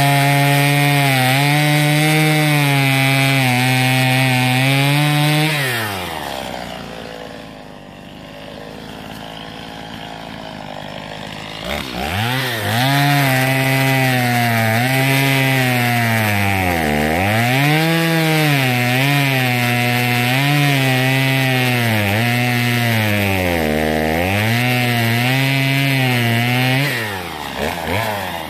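Gasoline chainsaw cutting through a downed log at high revs. A few seconds in it winds down to a low, quieter running for about five seconds, then revs back up and cuts again, its pitch dipping and recovering several times.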